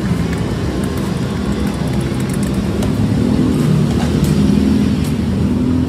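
A motor vehicle's engine running close by on the street, a steady low rumble that swells about four seconds in.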